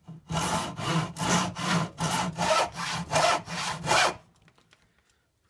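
Hand saw crosscutting a wooden board: about a dozen quick back-and-forth strokes, roughly three a second, stopping about four seconds in.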